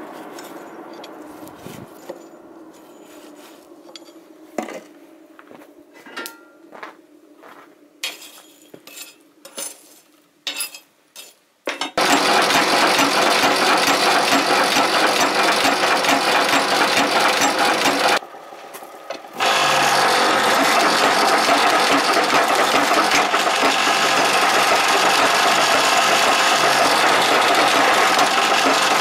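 A fading hum with scattered light clicks, then about twelve seconds in a loud, steady mechanical clatter starts suddenly: a power hammer working hot rebar. The clatter breaks off briefly around eighteen seconds and then runs on.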